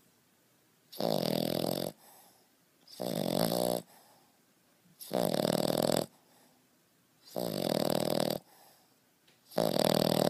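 A sleeping French bulldog snoring loudly and rhythmically: five long snores, each about a second, coming roughly every two seconds.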